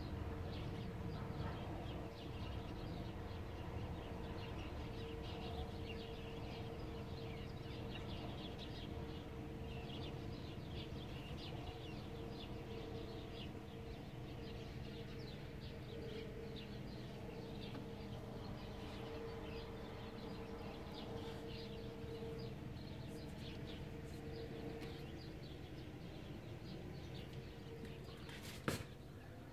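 Birds chirping over a low, steady distant hum that slowly fades. A single sharp click comes about a second before the end.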